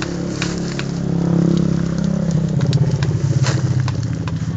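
A vehicle engine, motorcycle-like, running nearby. It grows louder from about a second in and drops somewhat in pitch past the middle, with scattered sharp clicks over it.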